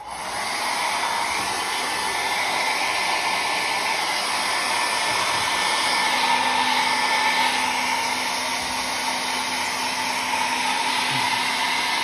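Handheld hair dryer switched on just as the sound begins, then running steadily: a continuous rush of blown air with a faint whine.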